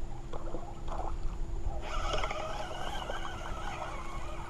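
Spinning reel cranked steadily from about two seconds in, winding in line with a small fish on it, over a low wind rumble on the microphone.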